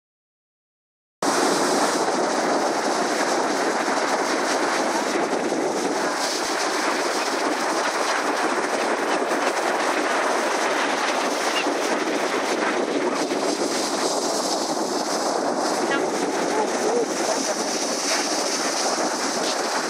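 Ocean surf breaking on the beach: a steady, even rush of waves that starts about a second in, after a moment of silence.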